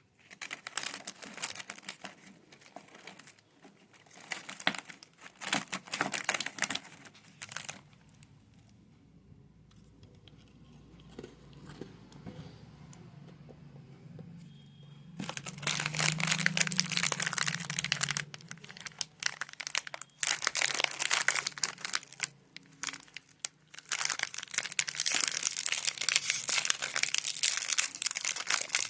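Snack wrappers crinkling and tearing as they are unwrapped by hand: dense crackling in spells, quieter between about 8 and 15 seconds in, then louder and busier to the end.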